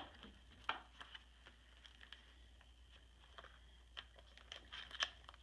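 Faint clicks and light rustling of plastic page protectors being turned in a ring-bound scrapbook album: a scattering of separate soft ticks, with a slightly louder cluster near the end.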